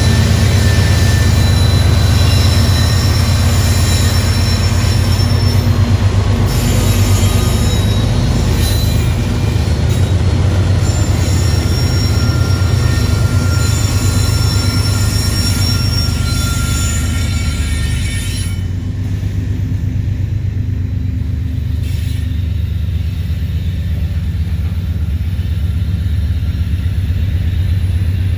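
Freight train passing close: the diesel locomotives run with a strong low rumble, with thin high wheel squeals over it. About two-thirds of the way through the squeals stop, and the rumble of the intermodal cars rolling past goes on.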